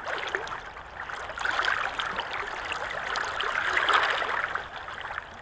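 Shallow stream water rippling over a rocky bed: a steady rush with many small splashes, swelling slightly about two and four seconds in.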